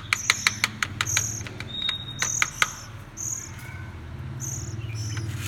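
Oriental magpie-robin nestlings begging for food with short, high-pitched calls repeated about once a second, over a run of sharp clicks in the first two to three seconds.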